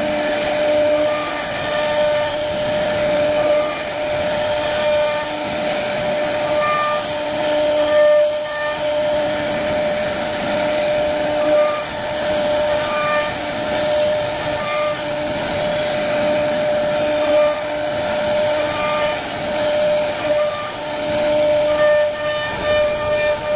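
CNC wood router carving a wooden panel: a steady high whine from the spindle over a haze of cutting noise, with shorter tones coming and going over it.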